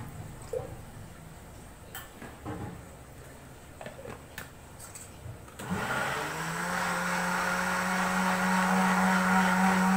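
A few light knocks and clinks as the blender jar is filled and its lid pressed on, then, a little past halfway, the electric blender is switched on: its motor spins up and runs steadily, mixing gram flour, yogurt and water into kadhi batter.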